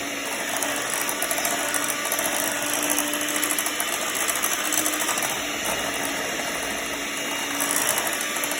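Electric hand mixer running steadily, its beaters churning cake batter in a bowl.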